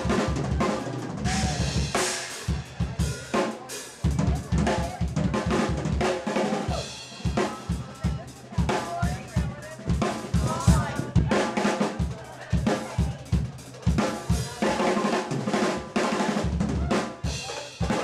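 Drum solo on a full drum kit: rapid bass drum strokes under snare and tom hits, with cymbals and hi-hat washing over them.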